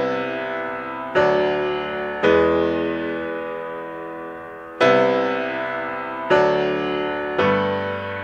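Background music: slow keyboard chords, each struck and left to fade, with a new chord about every one to two seconds.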